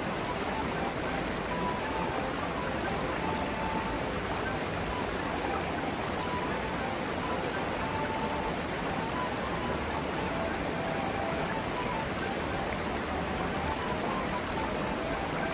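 Shallow river water rushing steadily over rocks, an even hiss.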